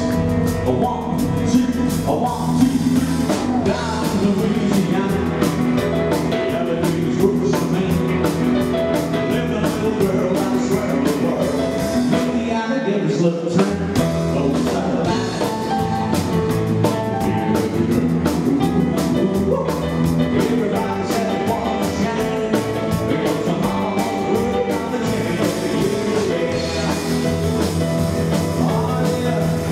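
Live rock 'n' roll band playing: drum kit, upright double bass and piano, with a male singer. The beat stops for a moment about halfway through, then carries on.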